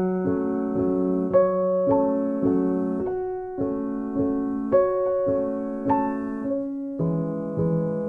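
Piano music: struck notes, about one or two a second, each ringing and fading over held lower tones.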